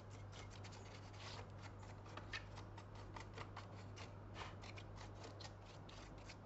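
Light, irregular scratching and clicking strokes, several a second, from dust being cleaned off a laptop's CPU fan by hand, over a faint steady low hum.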